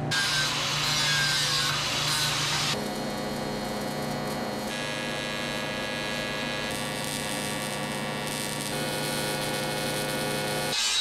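TIG welding arc on aluminium buzzing steadily, a mains hum with a hiss over it. The tone changes in steps every two seconds or so.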